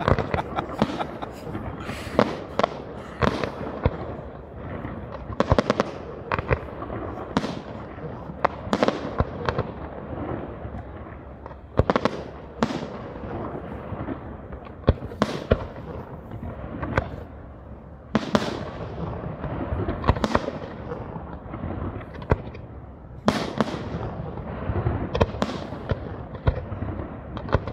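Aerial firework shells of a professional display bursting one after another. Sharp bangs come at uneven intervals over a constant din of smaller reports.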